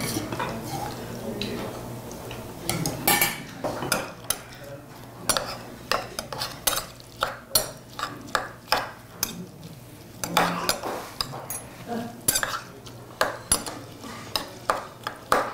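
Eating utensils clinking and scraping against bowls and dishes during a meal. There are irregular sharp clicks, roughly one or two a second, over a low steady hum.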